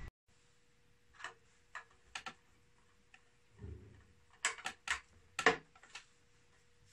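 A series of sharp clicks and light knocks, several in quick pairs, from the front-panel switches and metal case of a Concord 500 VA inverter as it is handled, over a faint steady hum.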